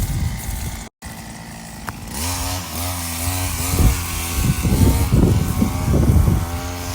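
Small two-stroke power tool engine, such as a brush cutter or chainsaw, running with its speed rising and falling as it works. The sound cuts out briefly about a second in, and the engine comes in loud from about two seconds.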